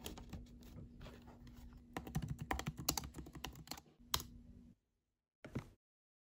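Typing on a laptop keyboard: a fast run of key clicks that stops about four seconds in, followed by one more click.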